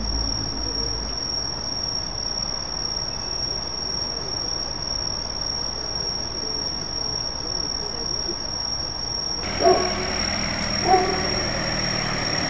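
Steady background noise, then from about three-quarters of the way in a car approaching with its engine running. Two short, loud tonal sounds come about a second apart as it approaches.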